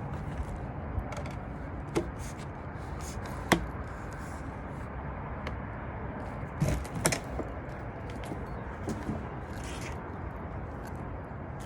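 Scattered clicks and knocks of cordless leaf blower parts being handled and fitted, the loudest about three and a half seconds in and a pair about seven seconds in, over a steady low rumble.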